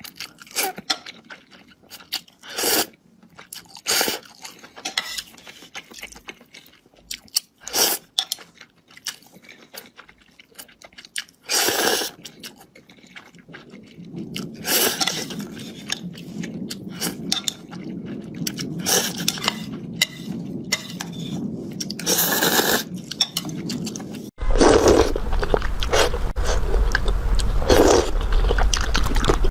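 Close-miked chewing and crunching of food: separate crisp bites at first, then denser, wetter chewing. About two-thirds of the way through the sound changes abruptly to louder chewing with a low rumble underneath.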